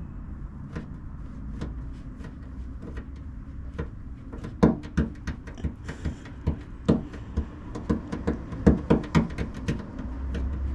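Irregular light knocks and taps, most of them in the second half, as hands press epoxy putty onto the holes in a car's fuel tank.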